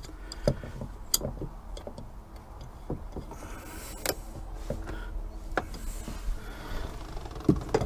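Irregular light clicks and ticks of an adjustable wrench working the nut on a boat's ignition switch, about ten spread unevenly over several seconds.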